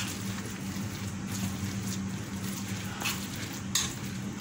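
A kabab mixture of boiled noodles, eggs, potato and shredded chicken being mixed: a few short squelching scrapes, one at the start and three close together near the end, over a steady low hum.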